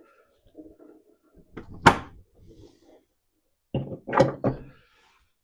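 Clunks from a car's body latches being worked: one sharp clunk about two seconds in, then a quick run of about three knocks around four seconds.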